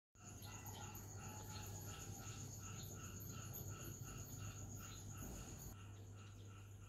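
Faint chorus of crickets and other insects: a steady high trill that stops about five and a half seconds in, over a softer chirp repeating about three times a second, with a low hum underneath.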